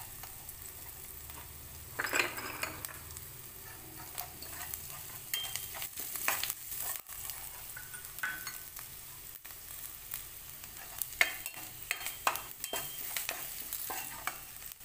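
Cumin seeds and green chillies sizzling in hot oil in a non-stick kadhai, with a metal spoon scraping and clicking against the pan now and then as they are stirred.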